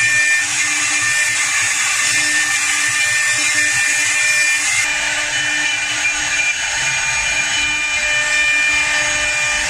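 CNC wood lathe with a router spindle cutting a square wooden blank: a steady motor whine over the hiss of the cutting.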